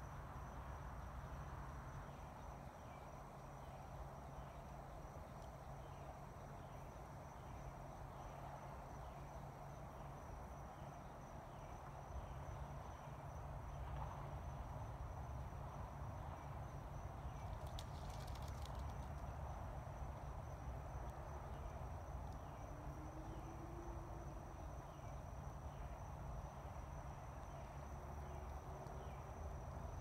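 Faint swamp ambience: a steady chorus of insects with evenly repeated small chirps over a low rumble, and a brief burst of clicking a little past halfway.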